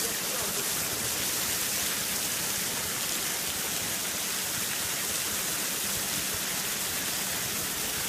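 Wattamolla waterfall pouring into the pool below: a steady rushing of falling water.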